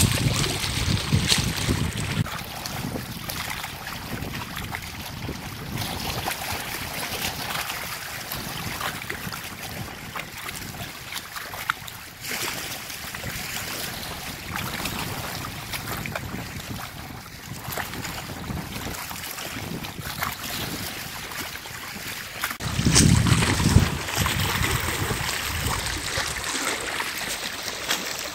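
Wind rushing on the microphone over choppy water lapping against the shore, with a louder surge of low wind noise near the end.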